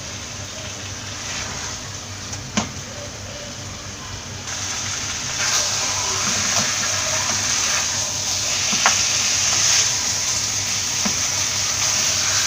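Chicken pieces frying dry in a nonstick pan, sizzling as they are stirred with a wooden spatula, with a few sharp taps of the spatula on the pan. The sizzle grows louder about four and a half seconds in. The chicken is cooked through and dry, and is being sautéed further to darken its colour.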